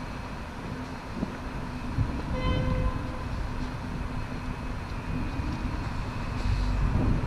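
Steady low rumble of city traffic, with a short horn toot about two and a half seconds in.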